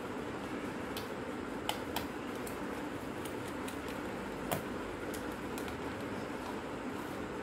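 Scattered small sharp clicks of a camera's plastic body being handled and worked apart by hand, the loudest about four and a half seconds in, over a steady background hum.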